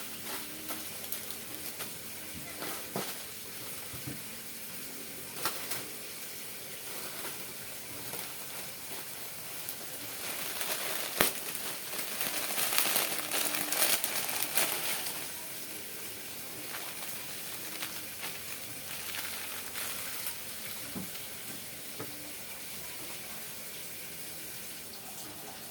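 Pot of laksa broth at a boil on the stove, a steady bubbling hiss. About 11 seconds in there is a sharp knock, followed by a few seconds of louder rushing noise.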